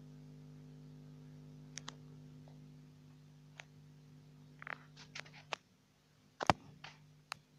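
Camera handling noise: a series of sharp clicks and taps, the loudest about six and a half seconds in, over a steady electrical hum that cuts off about five and a half seconds in.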